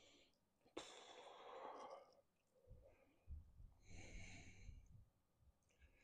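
Faint breathing: a long breath out starting with a soft click about a second in, and another breath around four seconds in.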